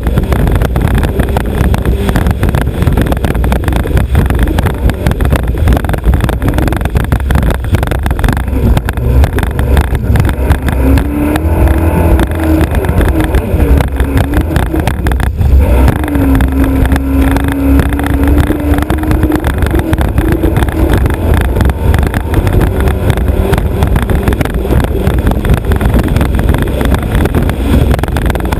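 Alfa Romeo Autodelta 2.5 V6 of a three-point racing hydroplane running hard at speed, heard from its bow amid rushing wind and water. Its note wavers up and down in the middle as the boat rounds a turn buoy.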